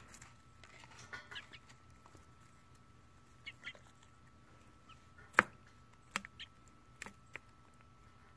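Hens pecking at food in a plastic tub: a few sharp, irregular taps of beak on plastic, the loudest about five seconds in, with a couple of short, soft hen calls in between.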